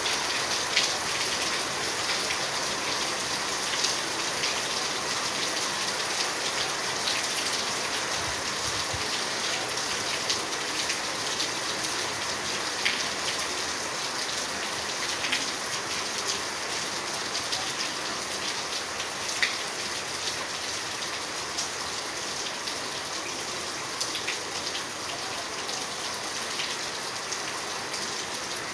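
Steady rain falling, with scattered sharper drops ticking on a hard surface.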